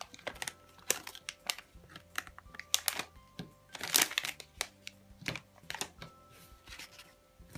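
Light clicks, taps and crinkling of a small plastic toy figure and its paper sign and plastic stand being handled and set down on a table.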